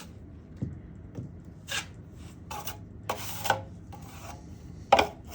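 Drywall knife scraping across joint compound on a wall in a handful of short strokes, the loudest near the end, after two light knocks in the first second or so.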